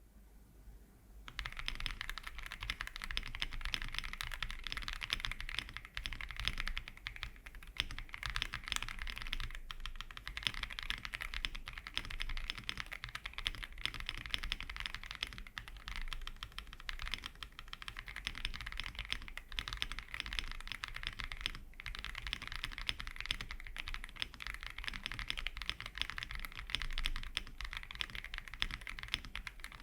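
Continuous fast typing on a mechanical keyboard with thick PBT keycaps, stock Akko CS Silver linear switches and a polycarbonate plate: dense, rapid keystroke clicks starting about a second in, with only brief pauses.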